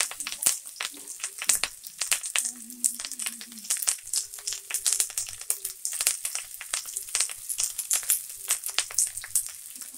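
Onions, garlic, green chillies and freshly added curry leaves sizzling in hot oil in a frying pan, with a dense, continuous crackle of quick pops.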